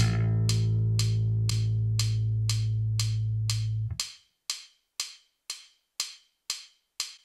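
Electric bass guitar (a Moon bass) holding a low A, the 5th fret of the E string, for about four seconds before it is muted. A metronome click ticks twice a second throughout and is heard alone after the note stops.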